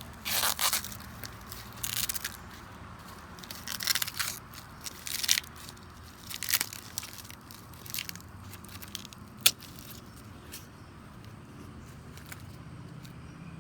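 Ears of sweet corn being shucked by hand: green husks tearing and crackling as they are stripped off, in repeated short bursts. A single sharp snap about nine and a half seconds in is the loudest sound.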